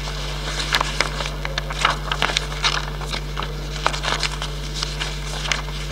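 Paper sheets rustling and crackling as pages are handled close to a microphone: many short, irregular crackles and ticks over a steady low electrical hum.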